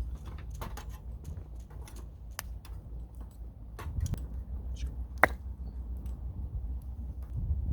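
Scattered small clicks and knocks, the sharpest one about five seconds in, over a low steady rumble.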